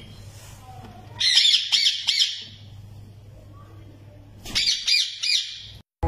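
Parrot chicks squawking in two short bouts of rapid, high-pitched calls, about a second in and again near the end.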